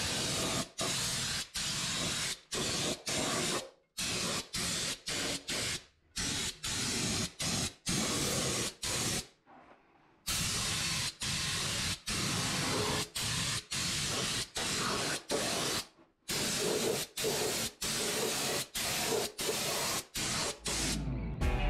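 Air-powered undercoating spray gun spraying Fluid Film oil, hissing in short trigger bursts about two a second with a few longer pauses.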